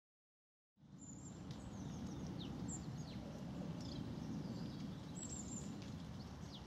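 Small birds chirping, many short high calls and quick downward-sliding notes, over a steady low rumble of outdoor background noise that begins about a second in.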